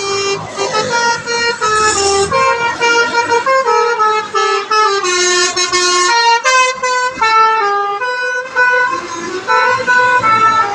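Bus basuri horn, a multi-tone air horn, playing a rapid telolet melody of short stepped notes.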